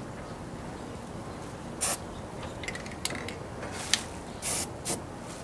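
Aerosol spray-paint can hissing in four short bursts: one about two seconds in and three close together near the end, with faint clicks between them.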